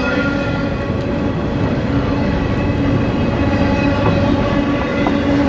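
Long CSX freight train rolling past, a steady rumble of wheels on the rails with several steady humming tones over it.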